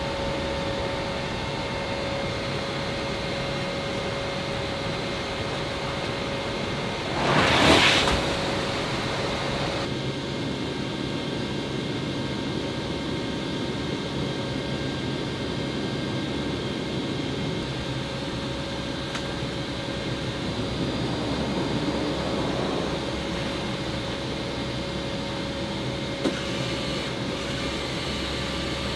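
Steady drone of the MC-130H Combat Talon II's four turboprop engines heard inside the cargo hold, with a constant hum over it. About seven seconds in, a loud rush of noise swells and fades within about a second. A single click comes near the end.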